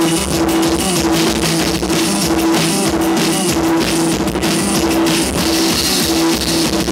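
Live rock band playing loud: a drum kit with cymbals keeps a steady beat under a repeated, pulsing held note and guitar.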